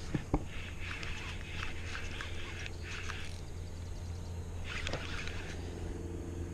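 Spinning reel being cranked by hand in bursts, a rough whirring with fine clicks, over a steady low hum.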